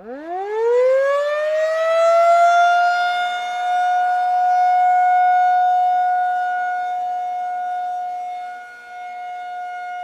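Civil defense warning siren winding up from a low pitch to a steady high wail within about two seconds, then holding that tone, with a brief dip in loudness near the end.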